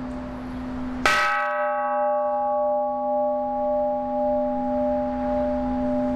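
Large hanging bronze temple bell (the kansho of a Jodo Shinshu temple) struck once about a second in with a hand-held striker, over the ring of the previous stroke. The bright clang fades within a couple of seconds, leaving a few deep steady tones that hum on with a slow wavering. It is rung to call the start of the Buddhist service.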